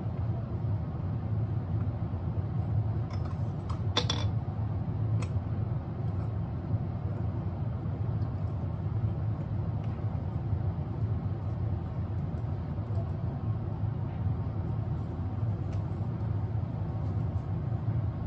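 Steady low mechanical hum with a single sharp click about four seconds in and a few fainter ticks.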